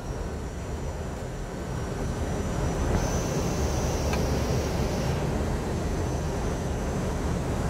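Steady rushing cockpit noise of an Airbus A319 descending on short final, growing slightly louder after about two seconds, with a thin high whine above it.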